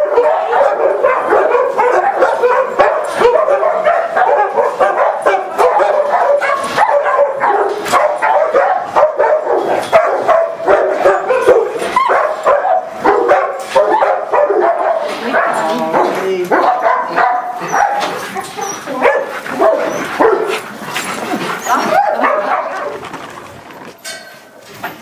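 Several penned dogs barking continuously, their barks overlapping, dying away near the end.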